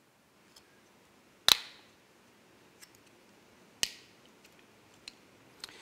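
Sharp plastic clicks and taps from a small plastic Raspberry Pi Zero case being handled as the board is pressed into it. Two loud clicks stand out, about a second and a half in and near four seconds, with several fainter ticks between.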